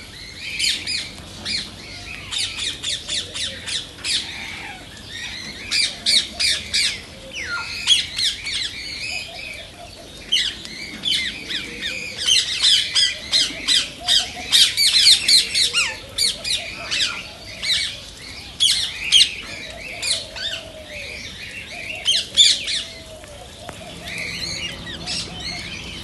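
Indian ringneck parakeet squawking and chattering in quick runs of short, shrill calls, with brief lulls between the runs.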